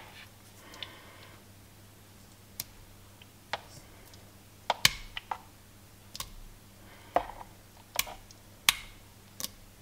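Scattered light clicks and taps, about ten, at irregular intervals as pumpkin purée is tipped out of a plastic tub into a stainless steel mixing bowl.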